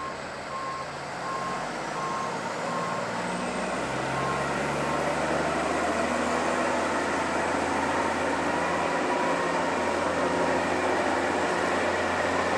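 A vehicle's reversing alarm beeping steadily for the first few seconds, then stopping, over a running engine that grows gradually louder.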